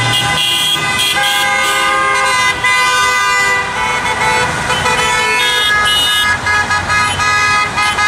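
Car horns from passing freeway traffic, many at different pitches, overlapping in long and short blasts one after another over the steady rush of heavy traffic. The drivers are honking in support of protest signs.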